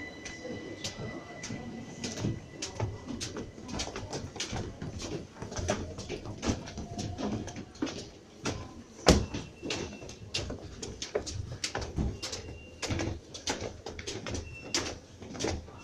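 Footsteps of several people climbing a station staircase with metal-edged steps: an irregular run of sharp steps, about two or three a second, with one louder knock about nine seconds in.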